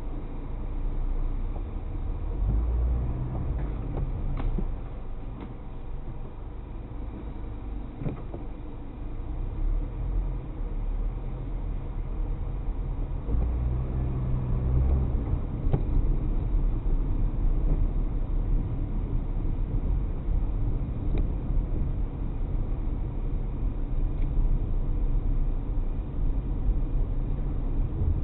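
Car driving on city roads: steady low engine and tyre rumble heard from within the car, growing somewhat louder about halfway through.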